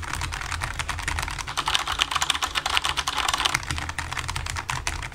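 Fast two-handed typing on a Logitech G913 low-profile mechanical keyboard with tactile switches: a quick, steady clatter of keystrokes.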